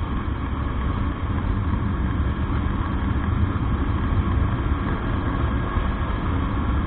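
Motorcycle cruising at steady speed: the engine running evenly under a rough rush of wind on the microphone.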